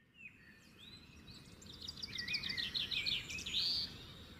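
Small cage birds in an aviary chirping and whistling: scattered high calls, then a fast run of short notes about halfway through and a rising whistle near the end, over a steady low rumble.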